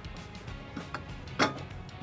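Background music with a couple of faint taps, then one sharp metal click about one and a half seconds in, as the Curt TruTrack weight-distribution bracket is set against the trailer's A-frame.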